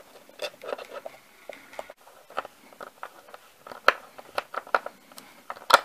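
Hand screwdriver driving a wood screw into a block of scrap wood: a run of irregular small clicks and creaks as the screw turns, with a sharper click near the end.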